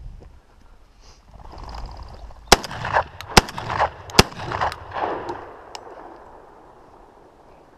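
Three shotgun shots fired in quick succession, under a second apart, each followed by ringing echoes that die away over the next couple of seconds.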